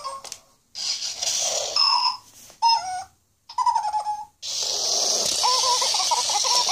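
Interactive toy mouse playing electronic squeaks and chirps from its built-in speaker over a hissing sound, in several separate bursts with short silences between. The last burst is a longer hiss with warbling squeaks.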